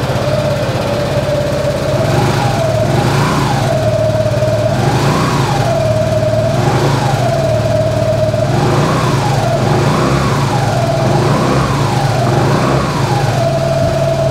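Suzuki Burgman 200 scooter's single-cylinder four-stroke engine idling just after starting, blipped with the throttle about seven times; each rev rises and drops back to a steady idle within about a second.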